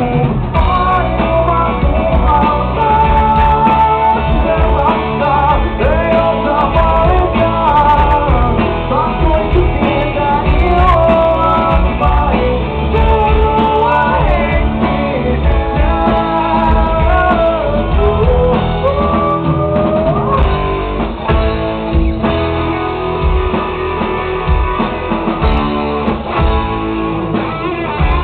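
Rock band playing live: a male lead vocal sings over electric guitars, bass and drums, captured from the crowd in a dull, muffled recording. The singing drops out about twenty seconds in, and the band plays on.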